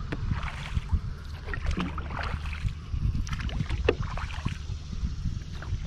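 Kayak paddling: the paddle blades splash and drip at irregular moments and water laps against the hull of a Wilderness Systems Tsunami 120 sea kayak, over a steady low rumble.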